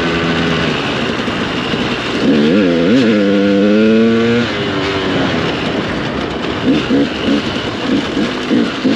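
Dirt bike engine heard from the rider's helmet while riding a rocky trail. The engine note swings up and down with the throttle, with quick revs about a third of the way in. Near the end the throttle is chopped on and off about twice a second.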